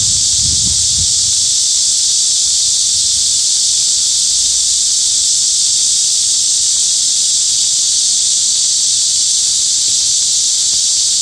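Cicadas singing: a loud, steady, unbroken high-pitched buzz with no pauses.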